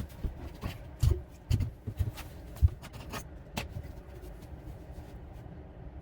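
Hands-on work at a toilet: a series of dull knocks and sharp clicks, the loudest about two and a half seconds in, thinning out to quieter handling noise over the last two seconds.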